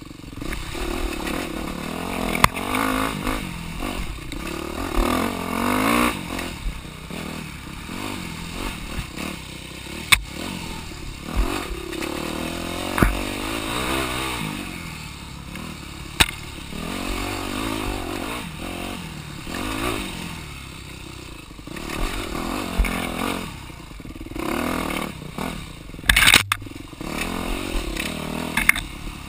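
Dirt bike engine revving up and easing off over and over while riding a rough trail, with sharp knocks and clatters from the bike over rocks and roots. A short, loud clatter near the end.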